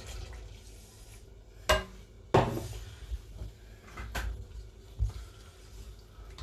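Kitchen utensils knocking against a metal saucepan: two sharp knocks about two seconds in, then lighter taps as a wooden spoon stirs the quinoa stew.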